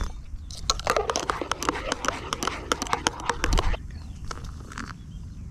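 Folding metal spoon stirring coffee in a metal camping mug, rapid clinking against the mug's sides that stops a little before four seconds in.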